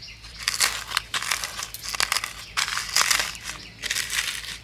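Crisp oil-fried dried red chillies crackling and crunching as they are crushed by hand with salt on a plate, in a run of short, repeated bursts.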